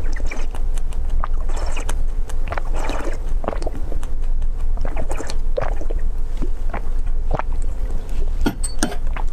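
Close-miked slurping and sucking of a drink with small pearls through the spout of a bird-shaped glass cup, with many short wet clicks and swallows. A steady low rumble runs underneath.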